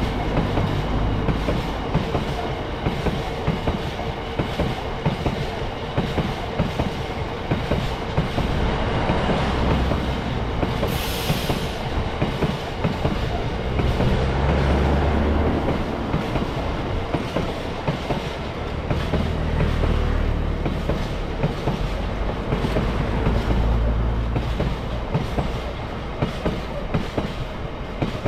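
Freight train rolling past, wheels clicking repeatedly over the rail joints above a continuous heavy rumble. There is a brief high hiss about eleven seconds in.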